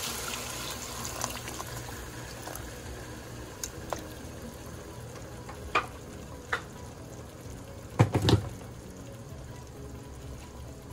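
Hot water poured into a pot of sautéed pork and shrimp, sizzling as the pour ends, then settling into a low steady simmering hiss. A wooden spoon knocks against the pot a few times, loudest in a quick cluster about eight seconds in.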